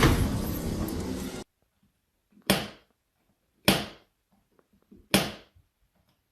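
A noisy stretch that cuts off suddenly about a second and a half in, then three sharp thumps a little over a second apart.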